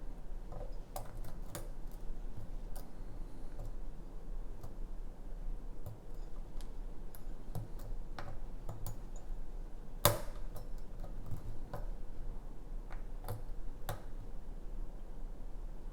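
Lock pick and tension tool clicking against the pins inside a pin-tumbler challenge lock as it is picked: irregular light clicks, with one sharper click about ten seconds in.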